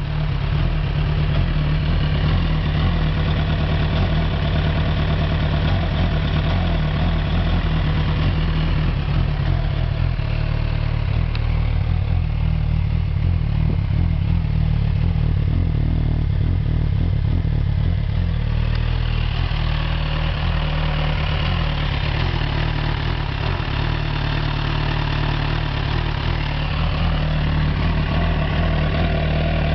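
2007 Suzuki GSX-R1000's inline-four engine idling roughly with a misfire, which the owner thinks may be down to the spark plugs. The upper part of the engine sound thins out for several seconds in the middle, then comes back.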